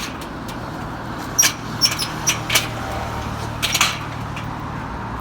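Metal dog-run gate being worked: a string of sharp clicks and short squeaks from the latch and hinges, over a steady low hum.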